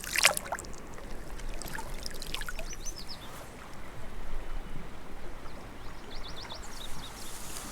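Small spring creek running steadily, with a bird giving short, quick chirps twice, about two and a half seconds in and again near the end. A brief, louder noise comes right at the start.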